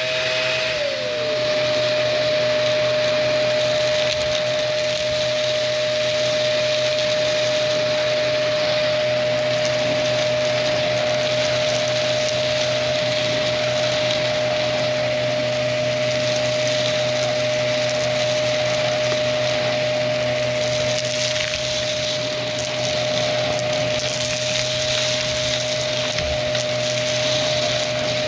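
Vacuum cleaner running steadily with a constant high whine over a low motor hum. A second, similar whine falls in pitch and stops about a second in.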